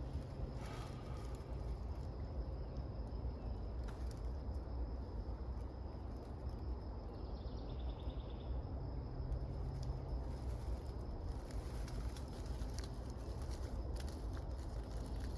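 Quiet spring woodland ambience: a steady low rumble with a faint, continuous high insect drone, a brief faint bird call about halfway through, and a few faint ticks near the end.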